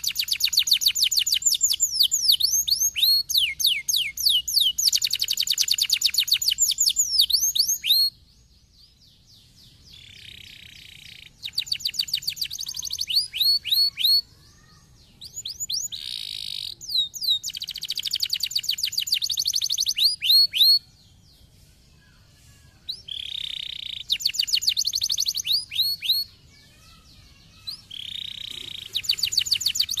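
Domestic canary singing: long, high trills of fast repeated rising notes mixed with short buzzy rolls, in phrases of several seconds broken by pauses of a second or two.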